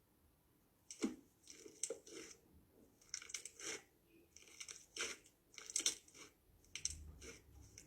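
Slime being squeezed and worked by hand, giving irregular crackles and sticky crunching pops, about a second in and on through.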